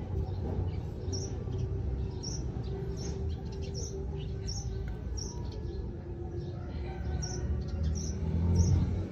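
A small bird repeating a short, high chirp about once every 0.7 seconds. Under it runs a steady low rumble that swells near the end.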